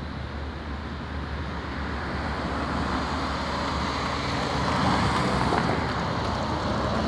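An Otokar Kent city bus and several cars drive past, with engine and tyre noise building to its loudest about five seconds in.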